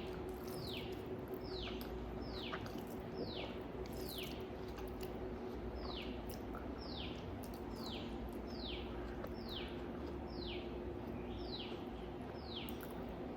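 A bird calling over and over: short chirps that each drop in pitch, about two a second with brief pauses, over a steady low hum.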